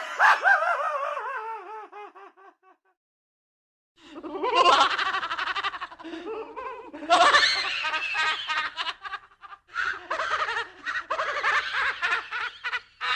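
Scary laugh sound effects: a laugh of repeated 'ha' pulses falling in pitch and fading out within about three seconds, then after a second of silence a second, longer laugh that runs on with brief pauses.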